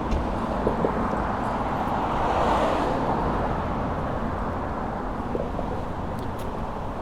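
Street noise with a steady low wind rumble. A car passes, swelling and fading about two and a half seconds in.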